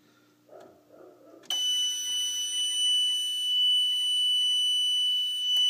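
Mircom FA-204E fire alarm control panel's piezo buzzer sounding a steady high-pitched tone after a system reset: the panel is signalling a common trouble. The tone starts abruptly about one and a half seconds in, after a few faint clicks.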